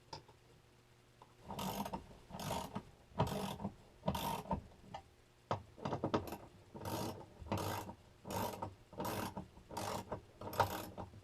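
Hand ratchet wrench being worked back and forth to drive in the bolts of a TV wall mount, a steady run of ratcheting strokes about one every 0.7 seconds, starting about a second and a half in.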